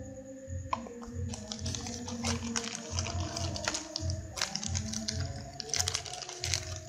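Clear plastic packaging crinkling and crackling as it is handled, a dense run of sharp crackles starting about a second in, over background music with a steady low beat.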